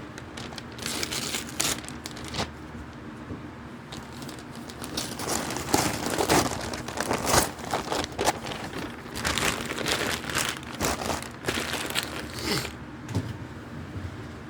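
Packaging being crinkled and torn open by hand: irregular rustling and crackling, busiest in the middle.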